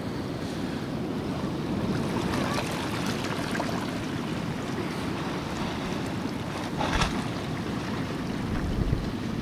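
Wind noise on the microphone over moving water, a steady low rushing with no pitch, and one short hissing burst about seven seconds in.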